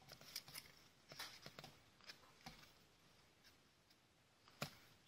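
Faint, scattered rustles and soft clicks of cardboard trading cards being handled and shuffled by hand, the clearest one near the end.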